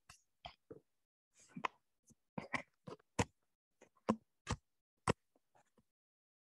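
A series of about a dozen light, sharp clicks and taps at uneven intervals, dying away near the end.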